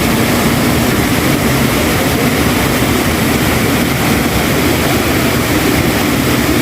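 Waterfall's falling water making a loud, steady rush.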